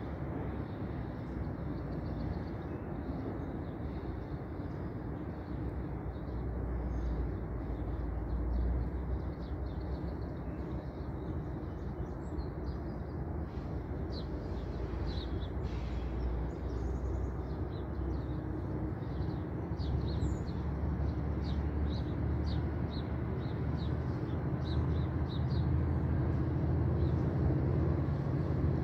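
Outdoor ambience: a steady low rumble with small birds chirping repeatedly from about halfway in. The low rumble slowly grows toward the end as a GO Transit train approaches from far down the line.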